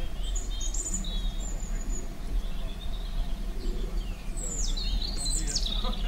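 Birds chirping in short high notes scattered throughout, with a quick run of falling notes near the end, over a steady low rumble.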